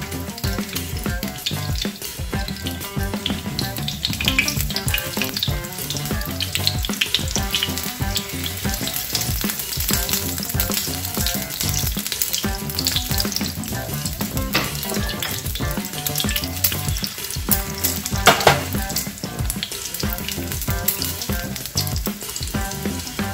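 Egg-battered squash blossoms frying in hot oil in a frying pan: steady sizzling and crackling, with one sharper, louder crackle about two-thirds of the way through.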